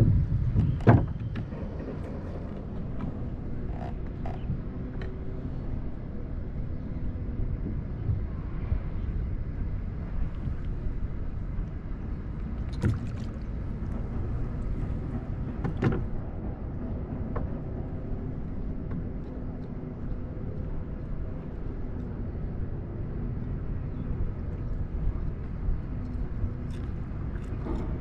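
Fishing kayak on open water: a steady low rumble of wind and water with a faint hum under it. It is broken by a few sharp knocks, about a second in and twice around the middle.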